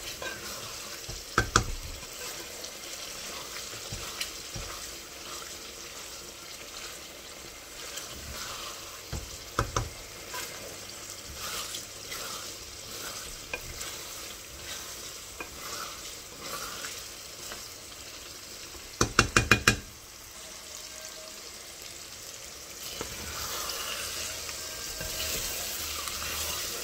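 Minced meat and spinach sizzling in a metal pot as it is fried dry, with the last of its moisture cooking off, stirred with a wooden spoon that scrapes and clicks against the pot. A quick run of knocks against the pot, a little past two-thirds through, is the loudest sound.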